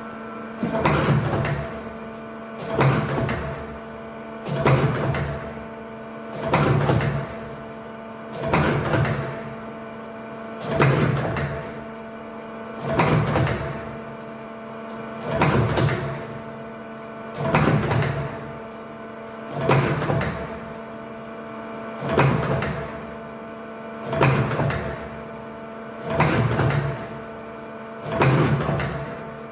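CNC machine tool turret indexing over and over, one cycle about every two seconds, each a short mechanical whirr that swells and fades, over a steady electrical hum.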